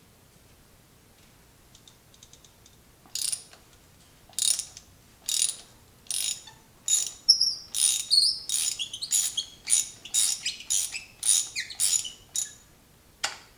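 Ratchet on an extension clicking in short bursts, one for each back-swing of the handle, as it loosens a spark plug. The bursts begin about three seconds in and come quicker, roughly two a second, from about seven seconds on.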